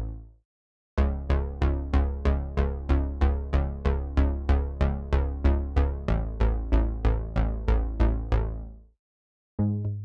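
TAL-U-NO-LX software synthesizer, a Juno-60 emulation, playing the bass arpeggio preset "BASS - The One": short plucked bass notes repeating at about four a second, fading out near the end. Just before the end, a new bass arpeggio begins.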